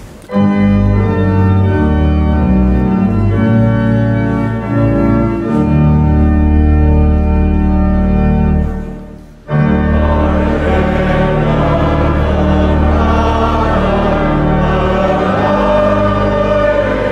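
Church pipe organ starts playing sustained chords with deep pedal notes, a hymn introduction. It breaks off briefly about nine seconds in, then resumes with the congregation singing the hymn along with it.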